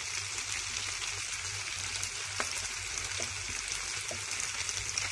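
Steady sizzle of macaroni, chicken and vegetables frying in a pan, with a few faint short clicks in the second half.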